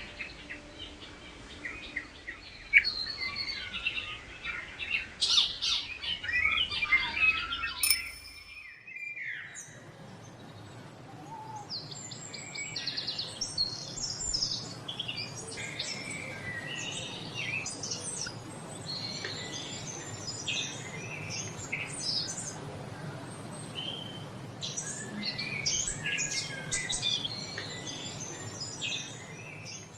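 A chorus of songbirds chirping and singing rapid high calls and trills. A little past eight seconds the ambience changes abruptly, as at a join between recordings, and the birdsong goes on over a steady background hiss.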